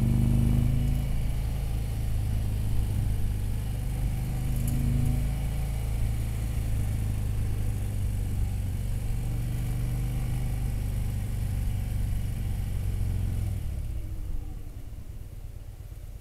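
Touring motorcycle's engine running steadily while riding along a street, with a few slight swells in throttle. About three-quarters of the way through the rider eases off and the engine drops to a quieter run.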